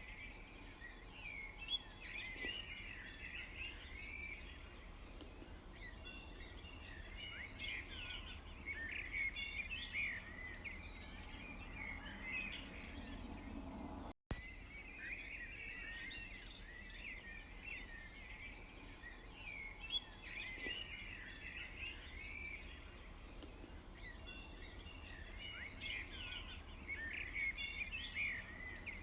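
Small songbirds chirping and twittering in quick overlapping calls, over a steady low background hum. The sound cuts out completely for a split second about halfway through.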